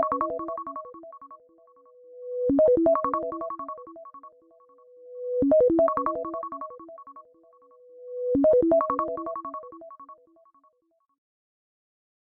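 iPhone (iOS) ringtone playing: a short melody of quick bright notes that repeats about every three seconds, four times, each pass fading before the next, then stops shortly before the end.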